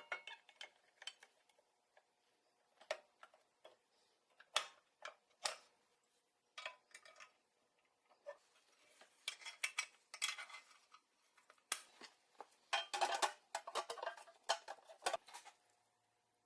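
Irregular clicks and clinks of small hard parts being handled and set down, some single and some in quick clusters. The busiest stretches come about nine to eleven seconds in and again from about thirteen to fifteen seconds.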